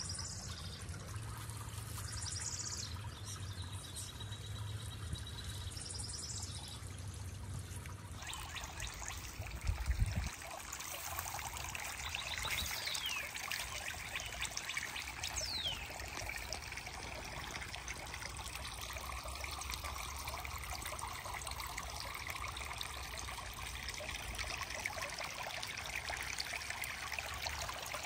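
Water trickling and splashing steadily, fuller from about eight seconds in, with a brief low bump about ten seconds in.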